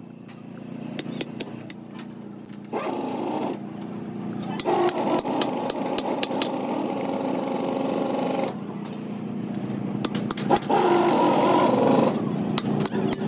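A power tool working on metal, running in three spells: a short one, a long one of about four seconds and another of over a second, with sharp metallic taps and clicks in the pauses.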